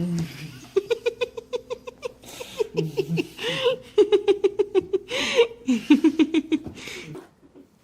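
A person laughing hard: long runs of quick, high-pitched ha-ha pulses broken by gasping breaths, stopping about seven seconds in.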